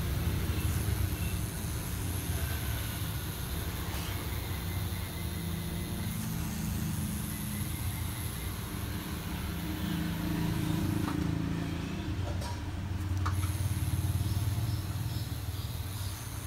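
Tattoo machine running steadily with a low, slightly wavering electric buzz.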